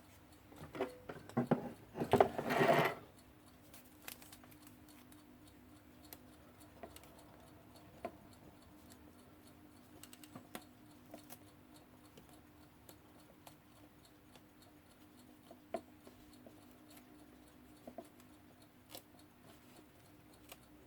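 Adhesive tape being handled and pressed onto a clock's glass and bezel. A short scratchy rasp about two seconds in is the loudest sound, followed by sparse small clicks and taps, over a faint steady hum.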